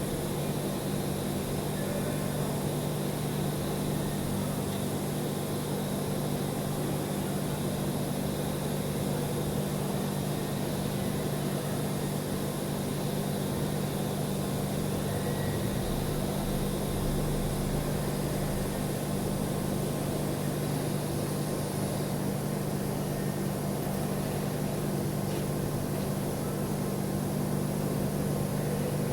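Welding on stainless steel: a steady low electrical hum over an even hiss, unchanging throughout.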